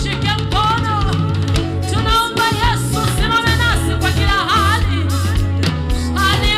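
Live Swahili gospel worship song: voices singing over a band, with steady bass notes and a drum beat underneath.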